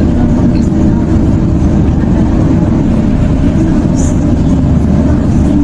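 A loud, steady low engine rumble, like heavy machinery running.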